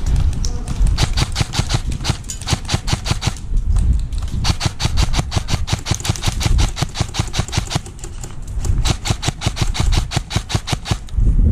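Airsoft rifle firing on full auto: three long bursts of rapid, evenly spaced shots, about ten a second, with short pauses between them.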